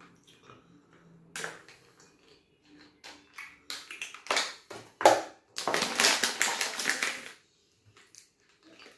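Close-up eating sounds: scattered clicks and taps, then a loud, dense run of crunching about five and a half seconds in that lasts nearly two seconds.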